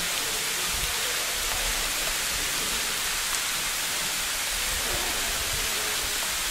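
A steady, even hiss, with faint low rumbles coming and going.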